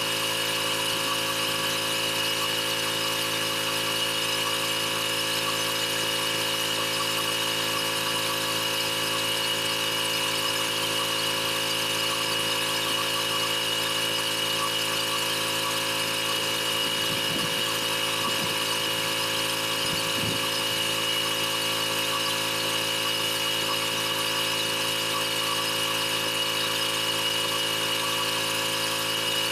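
Pressure washer running steadily: a motor hum with an even high whine over the hiss of the water spray.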